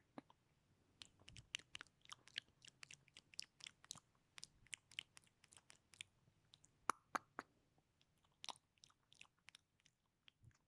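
Close-miked ASMR mouth sounds: quick, irregular wet clicks and smacks of the lips and tongue, several a second, against an otherwise quiet background.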